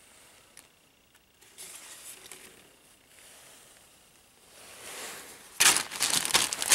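Clear plastic bags of styrene model-kit sprues rustling as they are handled. The rustling is soft at first, with a louder crinkling near the end.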